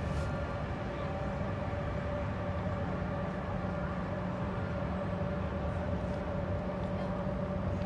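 Steady low drone of a large container ship's engines and machinery as it passes, a constant hum tone over a low rumble.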